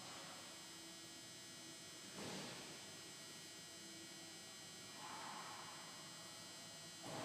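Faint steady electrical hum and high whine from a powered-up Haas VF-1 CNC mill, with three brief soft rushes of noise about two, five and seven seconds in.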